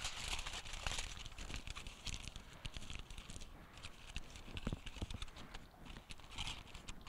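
Aluminum foil crinkling as hands roll it into a ring and press it into a pie crust: many small, irregular crackles.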